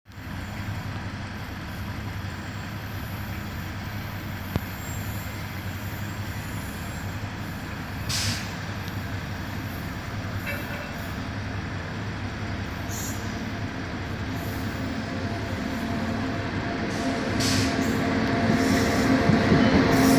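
Indian Railways WAG-9 electric locomotive hauling a long freight train as it approaches: a steady rumble that grows louder over the last several seconds, with a hum of several steady tones coming up near the end as the locomotive draws close.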